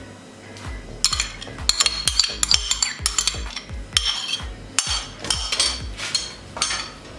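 A spoon scraping and tapping yoghurt out of a container, a quick run of clinks and scrapes starting about a second in. Background music with a low beat plays underneath.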